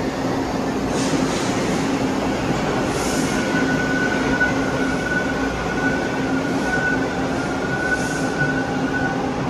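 TTC T1 subway train pulling out of the station platform, a continuous rumble of the cars with a steady high whine coming in about three seconds in and a few short hisses of air.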